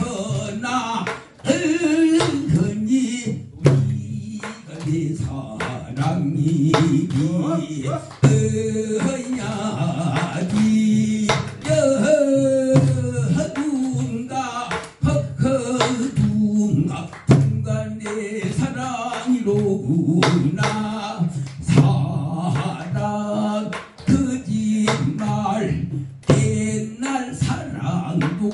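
A man sings a Korean folk song in a pansori-style voice with heavy vibrato, amplified through a microphone over steady backing accompaniment. Occasional sharp strokes come from a buk barrel drum.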